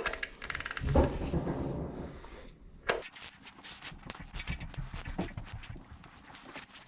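Rapid repeated clicking of a ratchet turning the nut on a threaded-rod crank hub installer, drawing the hub onto the crankshaft, with a sharper metal knock about three seconds in.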